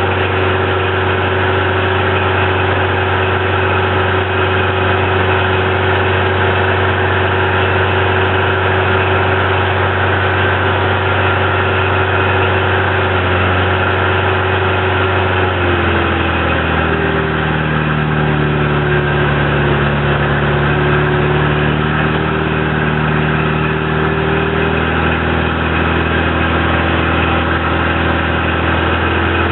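Gasifier-fed Toyota 22R inline-four engine running steadily while driving a 25 hp three-phase induction motor as a generator. About halfway through, its note shifts slightly lower and deeper, and it keeps running.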